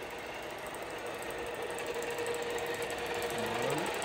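Steady hum of running machinery in a machine shop, with a faint fast rhythmic ticking and a low steady tone, growing slightly louder.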